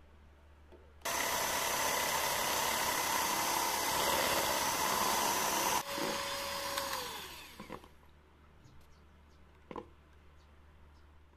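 Electric hand mixer switched on about a second in, beating a thick cream mixture in a bowl with a steady motor whir for about five seconds, then cut off with a falling whine as it winds down. A single knock follows near the end.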